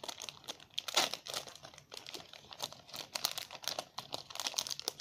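Wax-paper wrapper of an O-Pee-Chee hockey card pack crinkling and tearing as it is opened by hand, a dense run of small sharp crackles.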